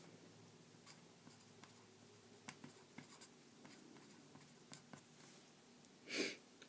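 Pen writing on a sheet of paper: faint scratches and ticks of the tip as a word is lettered, with a short louder rustle near the end.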